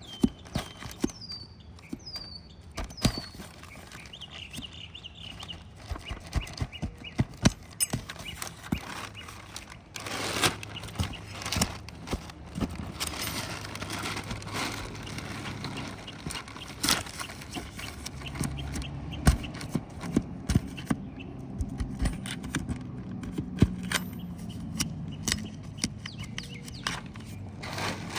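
Asphalt roof shingle being pried up and removed: scattered sharp knocks and clicks with scraping. The scraping grows denser about a third of the way in.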